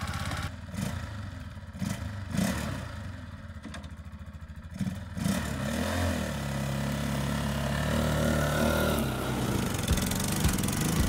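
Lifan 200 cc four-stroke motorcycle engine of a ZID Barkhan trike, idling with an even pulse, then revving up about five seconds in and running under load as the trike pulls away.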